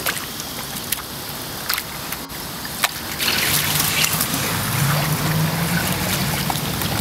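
Garden-hose water rushing through a removed lower radiator hose and splashing out of its open end onto wet pavement, flushing out rust from the hose. The rush and splash grow louder about three seconds in.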